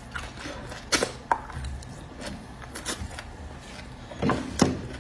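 Close-miked eating sounds from beef bone marrow being sucked from the bone and chewed: scattered wet mouth clicks and smacks, the loudest two coming close together near the end.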